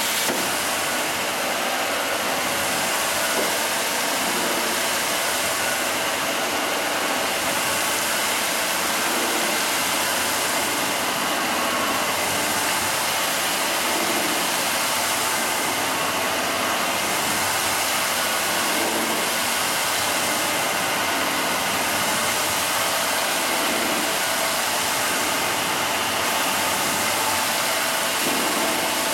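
Nine-head slab polishing machine running, its spinning polishing heads grinding a wet stone slab with a loud, steady hiss and whir that swells about every four to five seconds.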